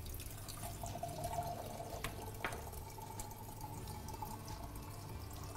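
Water running into a measuring cup to measure out a cup and a half of water for baklava dough. Its faint tone rises over the first couple of seconds as the cup fills, then holds, with two light clicks near the middle.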